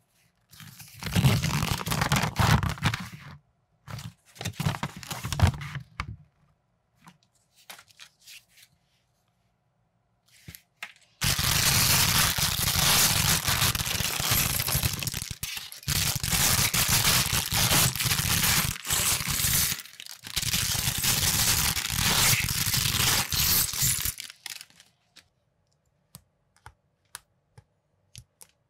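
Clear plastic parts bag being torn open, crinkled and shaken to tip out small plastic building pieces, in several bursts with a long stretch in the middle. Near the end come a few small, sharp clicks as minifigure parts are pressed together.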